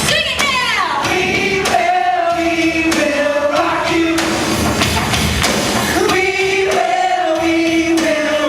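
Music with a choir singing long held notes that change pitch every second or so.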